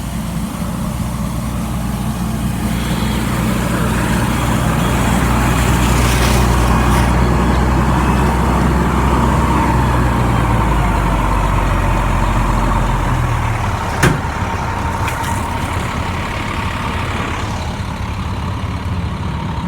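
A 2000 Hurricane fire engine running while pumping: a steady engine note that swells slightly and then eases off partway through. There is one sharp snap about fourteen seconds in.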